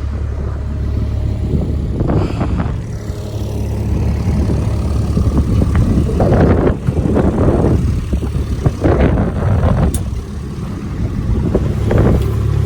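Kubota farm vehicle's engine running steadily while driving across a paddock, with irregular louder noisy surges over the engine's low rumble.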